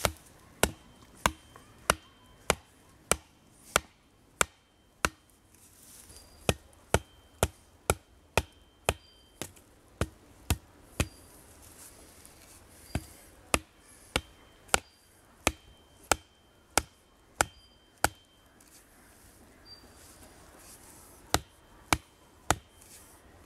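Back of a hatchet hammering the top of a wooden Y-stick stake to drive it into the ground. Sharp wooden knocks come a little under two a second, in runs of several strikes with short pauses between, the last run only three strikes.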